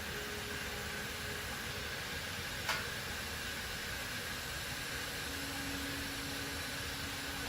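Steady hiss of workshop background noise with a faint hum, broken by one sharp click a little under three seconds in.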